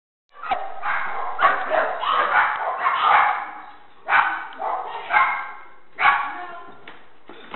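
Dogs barking in an echoing shelter kennel: a dense run of overlapping barks for about three seconds, then single barks about a second apart.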